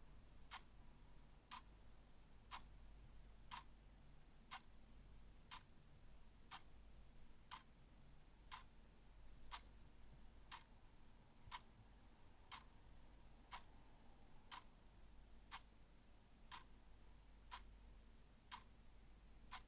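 Clock ticking faintly and steadily, one sharp tick about every second.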